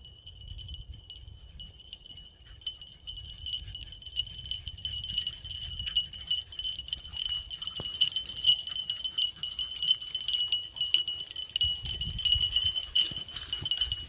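Chorus of spring peepers: a steady, high piping made of many overlapping peeps, with wind buffeting the microphone in low gusts.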